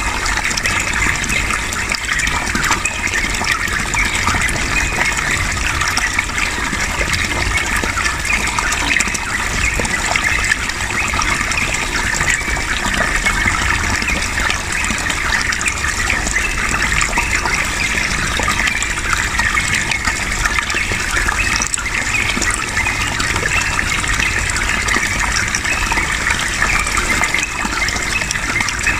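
Steady rushing of flowing water, with the chattering song of a yellow-vented bulbul (trucukan) running through it.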